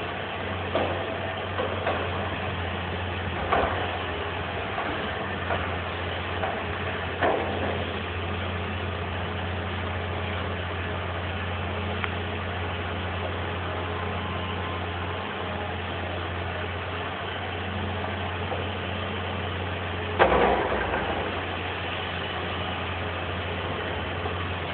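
Excavator's diesel engine running steadily while the bucket digs at the base of a tree, with scattered short knocks and one louder knock about twenty seconds in.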